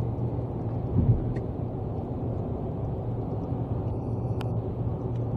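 Car cabin noise while driving at motorway speed: a steady low rumble of engine and tyres, with a brief thump about a second in.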